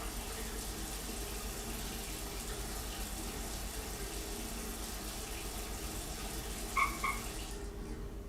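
A steady hiss, like static or running water, over a low hum; it cuts off about seven and a half seconds in, just after two short high tones.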